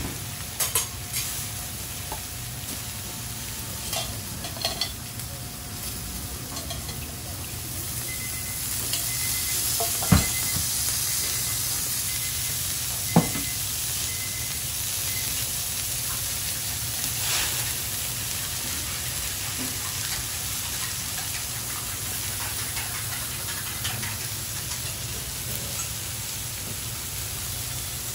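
Shrimp and squid sizzling on a hot steel teppan griddle: a steady frying hiss that swells about a third of the way in. Two sharp knocks stand out, one about ten seconds in and another about three seconds later.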